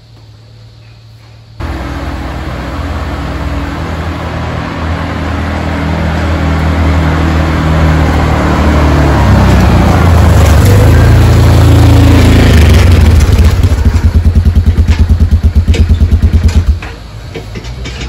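Four-wheeler (ATV) engine that comes in suddenly about a second and a half in and grows louder as the quad drives up close. It then runs at idle with an even throb for a few seconds and is switched off near the end.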